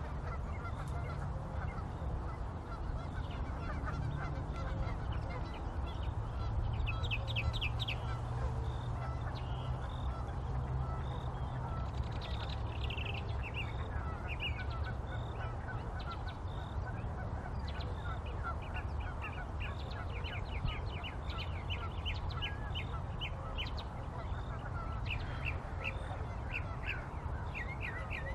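Small songbirds chirping in quick repeated trills over a steady low hum.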